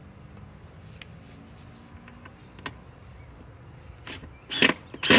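Cordless DeWalt drill driving a screw into OSB board, triggered in two short bursts near the end, with a few faint clicks before.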